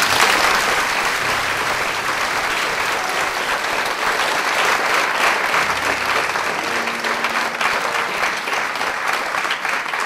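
Theatre audience applauding, a dense steady clapping that starts suddenly.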